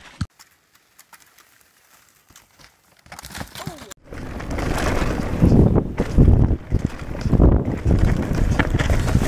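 Wind noise on a rider-mounted camera's microphone and the rumble of a mountain bike riding fast down a dirt trail, with repeated heavy thuds over bumps, starting about four seconds in after a quiet stretch. Two short knocks at the very start.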